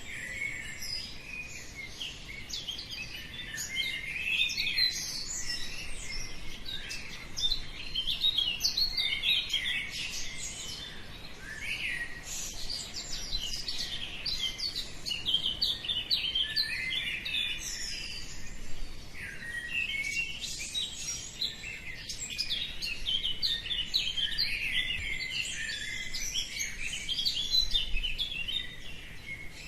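Dawn chorus: many songbirds singing and chirping at once, a dense overlapping mass of short high-pitched chirps and trills.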